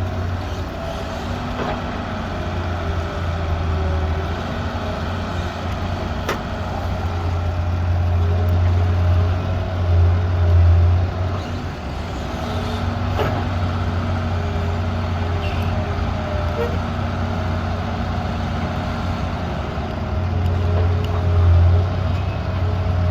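Hitachi EX100WD wheeled excavator's diesel engine running steadily with a low drone and steady whine-like tones above it. It swells louder about 10 s in and again about 21 s in, as if working under load, with a few light knocks.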